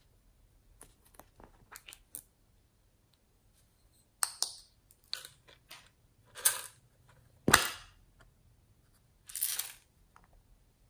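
Small plastic objects handled over a bowl of slime: scattered light clicks and taps, with a sharp knock about two-thirds of the way through as the loudest sound. Near the end a brief rattling hiss as glitter is shaken from a small plastic shaker onto the slime.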